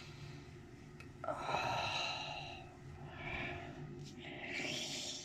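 A man's breathy sighs and exhales, three in a row, the first long and the loudest, while he massages his face.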